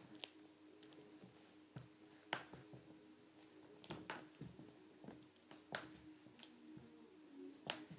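Crutch tips tapping on a hardwood floor as someone in a leg cast walks on crutches: a sharp tap every second or two.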